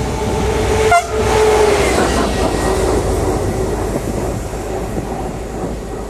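A train passing through a station at speed, with a very short horn toot about a second in as it goes by, then the rumble of its wheels on the rails slowly getting quieter.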